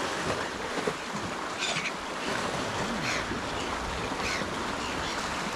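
Ocean surf washing and breaking against the shore, a steady rushing noise.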